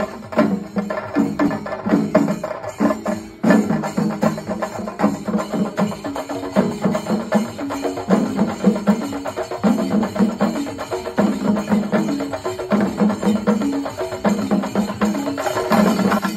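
Percussion-led music: fast, dense drum strokes over a low pattern that repeats about once a second. The level dips briefly and jumps back about three seconds in.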